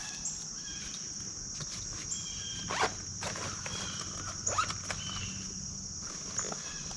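Steady high-pitched insect chorus, with a few short bird chirps and scattered light knocks and rustles, several seconds apart, from someone moving about.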